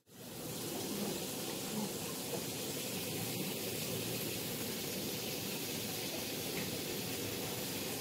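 Pedicure spa tub's whirlpool jets churning the foot-bath water, a steady rushing hiss.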